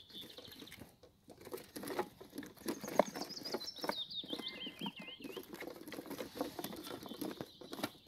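Captured songbirds (nightingales and blackcaps) scrabbling and fluttering inside small boxes bedded with wood shavings: dense, irregular scratching and light pattering that starts about a second in. A wild bird sings a wavering, warbling phrase in the background in the middle.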